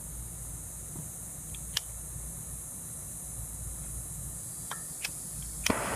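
A few short, sharp clicks over a steady background hiss, the loudest a quick double click near the end.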